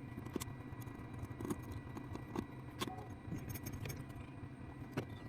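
Scattered light clicks and scrapes of small objects being handled during wiring work, over a steady low hum.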